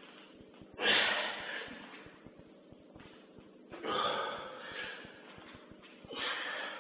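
A man breathing hard and forcefully while straining under a loaded barbell: three loud, rough breaths about three seconds apart.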